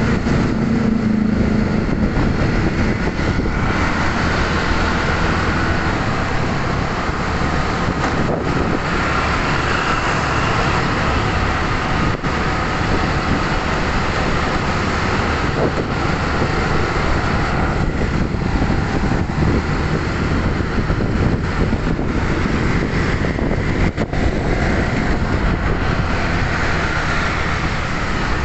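Steady traffic noise heard from a moving vehicle in dense motorcycle and car traffic: engines and road noise run without a break.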